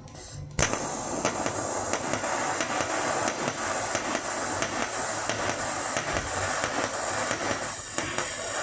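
TIG welding arc on 1.5 mm stainless steel under argon shielding gas. The arc strikes suddenly about half a second in, then runs as a steady crackling hiss.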